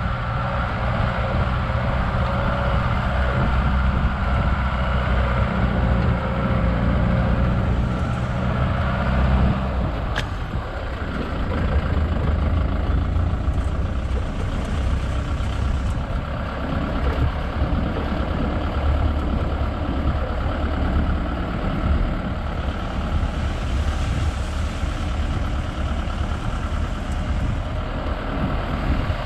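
Safari vehicle's engine running as it drives along a forest track. The engine note changes about a third of the way through, with a short click at that moment, and then runs on lower.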